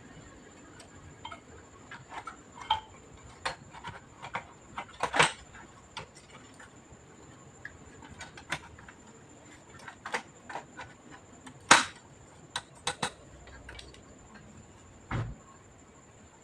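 Irregular small clicks and taps of hard plastic and metal parts being handled and worked with tools, as an all-in-one PC is taken apart. Two sharper clicks stand out about five and twelve seconds in, and a short dull thump comes near the end, over a faint steady high whine.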